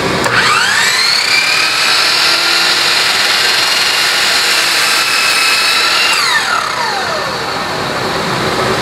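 Miter saw motor spinning up with a rising whine and then running at full speed while the blade is lowered slowly through a short piece of wood. About six seconds in, the motor winds down with a falling whine once the trigger is released.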